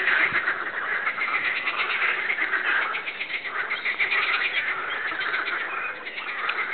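A chorus of pond frogs croaking without pause, many pulsed calls overlapping into one continuous din.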